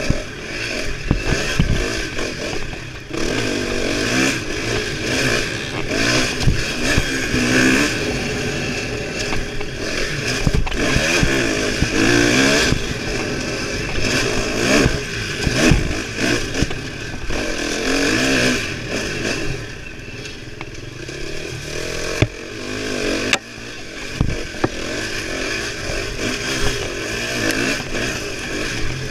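Dirt bike engine revving up and falling back again and again as it is ridden hard along a twisting wooded trail, easing off for a few seconds about two-thirds of the way through. Scattered knocks and rattles from the bike over bumps.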